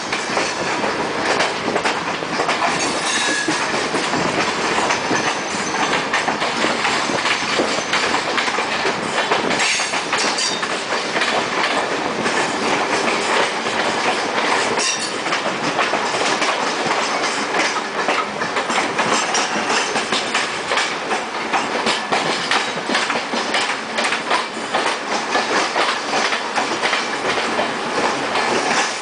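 Wheels of electric multiple-unit suburban trains running over rail joints and points, heard from aboard the moving train. The sound is a loud, continuous clickety-clack and rattle of wheels on track.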